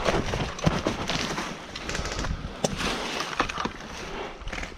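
Footsteps crunching and rustling through dry brush and leaves, with irregular sharp cracks and clicks of twigs and gear as the player moves.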